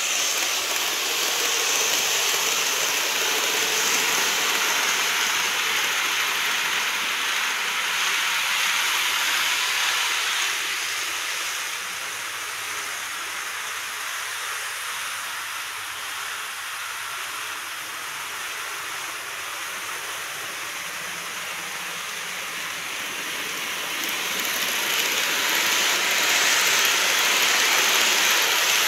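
N-gauge model trains running on the layout's track, making a steady whirring rush of wheels and motor. It is louder while a train runs close by over the first ten seconds, falls away in the middle, and rises again near the end as another train passes close.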